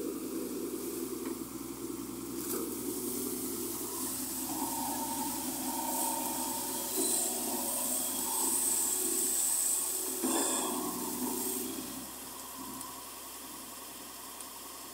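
Volvo wheeled excavator's diesel engine running steadily while its bucket pours water over the machine's wheels. The water splashes and hisses from about six seconds in until a little before the end.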